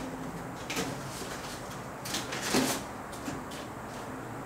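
Cardboard box flaps and packaging being opened and handled by hand, with a few short scrapes and rustles, busiest a little after two seconds in.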